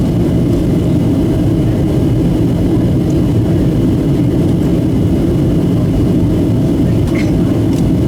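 Steady cabin drone of a Boeing 737-700 in flight, its engine and airflow noise even and low-pitched throughout, with a faint steady high tone above it.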